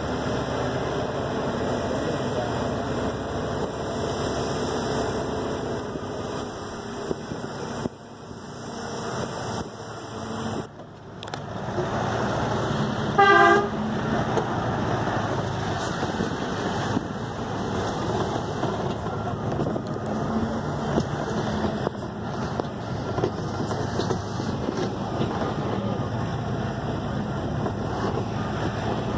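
Steady engine and road noise of a bus, heard from inside the cabin. About halfway through, a horn honks once, briefly, the loudest sound in the stretch.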